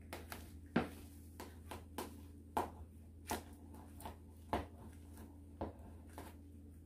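Kitchen knife cutting slices from a block of pressed pig's-head meat on a metal tray: a run of short, sharp clicks and knocks, about two a second and unevenly spaced, some louder than others.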